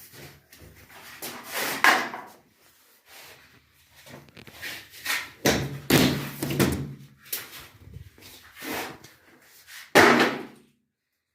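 A run of irregular knocks, scrapes and bangs, with a loud bang about two seconds in and another near the end.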